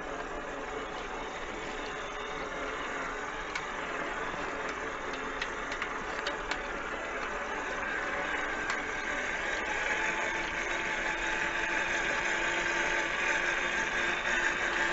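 Radio-controlled tow truck's motor and drivetrain running steadily as it pulls a loaded trailer over rough ground, growing louder about eight seconds in. A few small clicks come in the middle.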